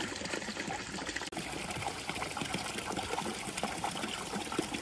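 Running water trickling and pouring steadily, with a brief drop-out about a second in.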